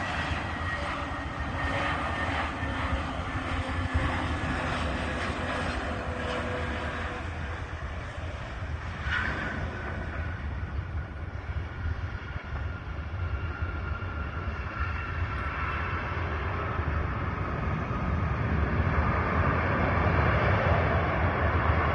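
Airplane engines on landing approach: a steady rumble with several whining tones that slowly fall in pitch, growing louder near the end.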